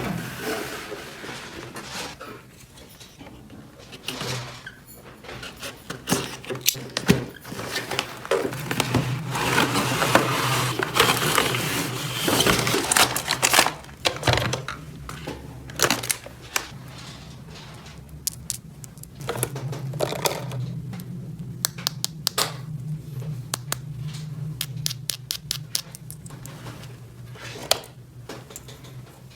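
Small plastic toy pieces being handled and fitted together: a string of sharp clicks and taps, with crinkling and scraping of packaging, thickest a third of the way through.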